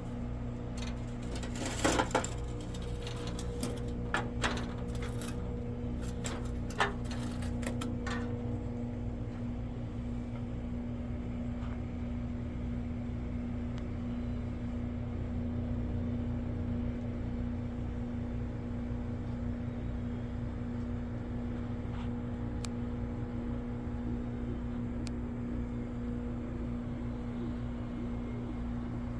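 A steady low machine hum, with a cluster of sharp knocks and clatters in the first eight seconds.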